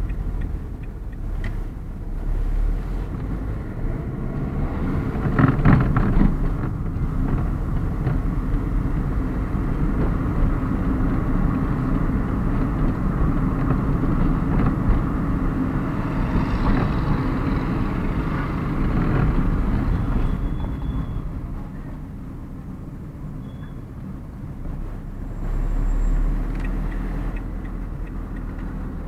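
Car engine and tyre noise heard from inside the cabin while driving, rising and falling with speed: louder about six seconds in and through the middle, dropping off about three quarters of the way through, then picking up again.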